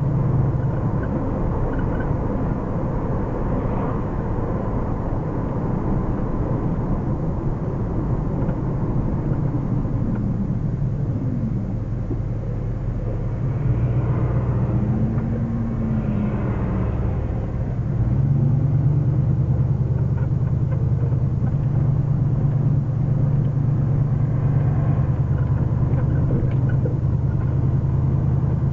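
1979 Ford Mustang Pace Car driving, its engine heard from inside the cabin as a steady low drone. The drone eases off in the middle and grows louder again about two-thirds of the way through. The engine is fresh and still being run in.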